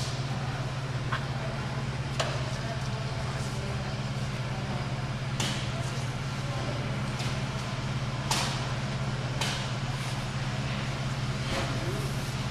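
Steady low mechanical hum with a few faint sharp clicks scattered through it.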